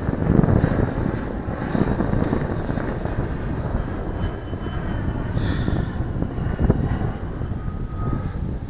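Wind rumbling on the microphone, with a few knocks and rustles from handling the fish and net.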